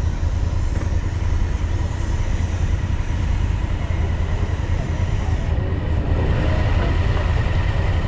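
Engine running steadily with a low, even hum and a faint constant whine above it. Murmuring voices join near the end.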